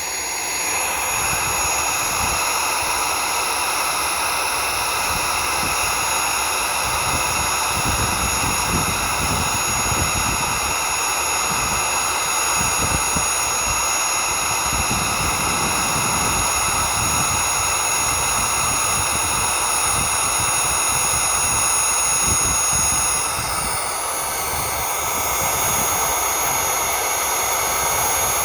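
Vacuum cleaner's 8.5 amp motor running at full speed with a steady high whine and whoosh, its intake taped off so it gets no cooling air; it is overheating and beginning to smell hot. Gusty wind rumbles on the microphone underneath, and the whine dips briefly about 23 seconds in before picking back up.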